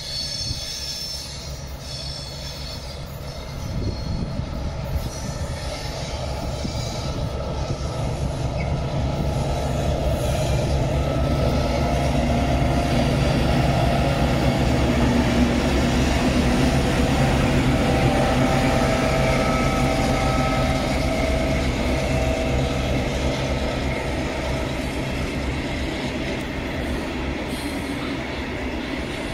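Two TÅGAB TMY diesel-electric locomotives running in multiple, with Nohab-built bodies and EMD two-stroke V16 engines, approaching and passing close while hauling a loaded timber train. The steady engine drone builds to its loudest about halfway through, then gives way to the rolling of the log wagons, with some thin wheel squeal near the start.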